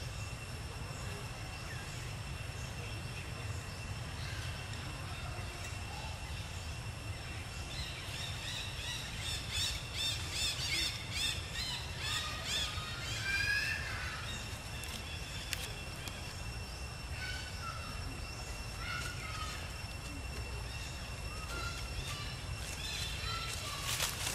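Outdoor ambience: a steady low rumble under two thin, steady high tones, with a flurry of short, high chirping calls about a third of the way in and a few scattered chirps after. A few crackles come near the end.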